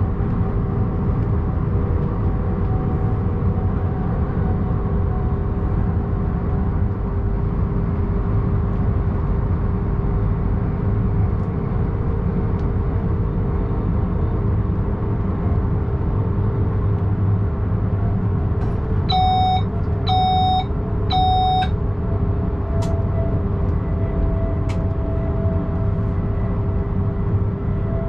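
Cab of an SBB ICN tilting electric train (RABDe 500) running at speed: steady rumble of the wheels and running gear with a steady electric traction hum. About nineteen seconds in, a cab warning device sounds three short beeps about a second apart.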